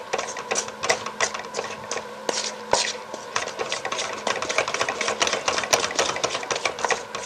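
Spatula beating stiff cake batter in a stainless steel mixing bowl: quick, even scraping and knocking against the bowl, several strokes a second.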